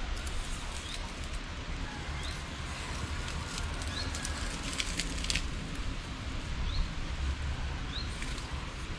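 A small bird repeating a short rising chirp every second or so over a steady outdoor background hiss and low rumble, with a brief cluster of clicks and rustling about four to five seconds in.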